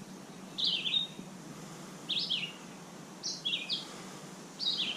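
A bird calling: four short chirping phrases, roughly one every second and a half.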